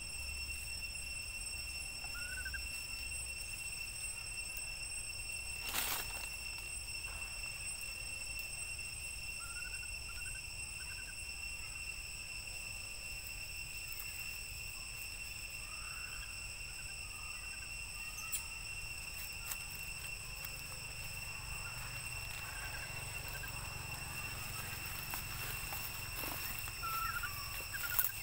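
Forest ambience dominated by a steady, high-pitched insect drone, with a few short, faint chirps scattered through it and one sharp click about six seconds in.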